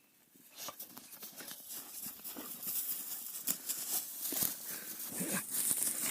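Footsteps on the trail: irregular steps and scuffs that get louder over the first couple of seconds.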